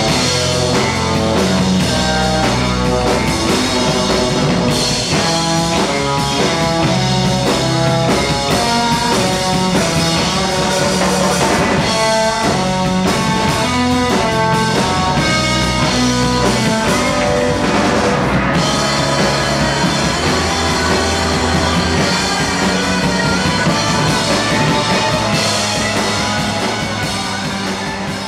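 Rock music with drum kit and guitar, starting to fade out at the end.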